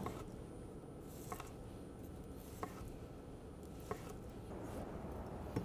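Knife slicing through a crusted, grilled strip steak on a wooden cutting board, with three light knocks of the blade on the board about a second and a half apart.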